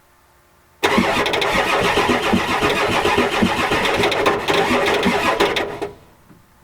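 1993 Ford F-250's 7.3L IDI V8 diesel being cranked by the starter for about five seconds on ether with its glow plugs disconnected, turning over without firing, then stopping. The owner takes the failure to start on ether for bad compression.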